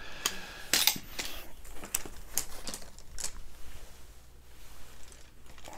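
Aluminium poles of a folding camping chair frame clicking and knocking together as they are handled and assembled: a run of irregular light clicks, thinning out in the second half.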